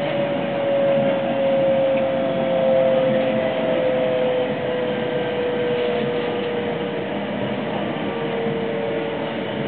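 JR West 225 series electric train with Toshiba traction equipment, heard from inside the car: the traction motor whine falls slowly in pitch as the train slows, over a steady rumble of wheels on rail.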